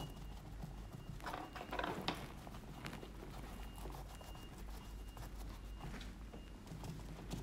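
Faint, irregular soft pats of a sponge dabbing acrylic paint onto a stretched canvas to blend the colours, with a quicker run of louder dabs about a second and a half in.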